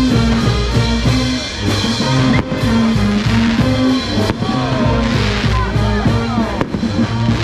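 Brass band music with a steady bass beat, with fireworks hissing and crackling over it.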